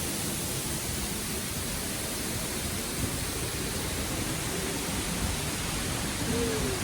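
Steady rushing noise with no break, with a short falling call about six seconds in.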